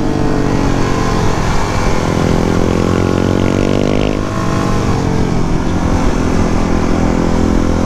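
Suzuki DR-Z400 supermoto's single-cylinder engine accelerating. Its pitch rises through a gear, drops at a shift about four seconds in, then climbs again.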